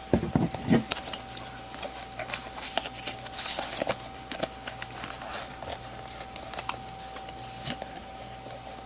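Unboxing a small retail package: a cardboard box and plastic packaging being handled and opened, giving scattered rustles, crinkles and light clicks. A faint steady whine runs underneath.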